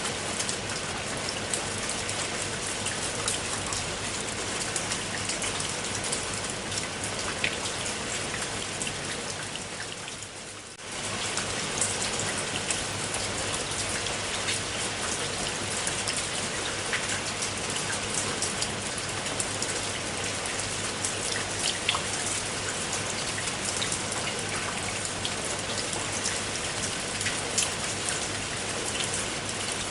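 Steady rain falling, with many distinct drop ticks over an even hiss. About ten seconds in, the sound fades down briefly and comes straight back.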